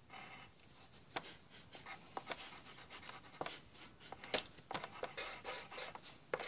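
Pencil scratching on paper in short, irregular drawing strokes, the loudest a little past the middle.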